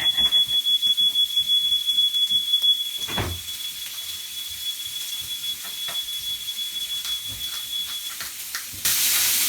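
Smoke alarm sounding one steady high-pitched tone, set off by smoke from the searing-hot cast iron pan; it cuts off about eight seconds in. Near the end a loud sizzle starts suddenly as food fries in the hot cast iron pan.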